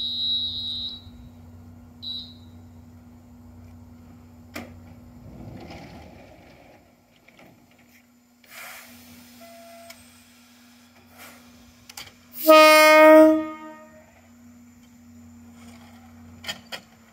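Choshi Electric Railway Deha 2000 series train sounding one short horn blast, about a second long, about three-quarters of the way through, the signal for departure. A steady low hum runs under it, and a short high beep sounds at the start and again about two seconds in.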